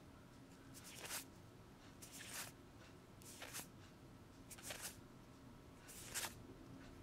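Faint swishes of paper Magic: The Gathering trading cards sliding against one another as a stack is leafed through one card at a time, five soft swipes a little over a second apart.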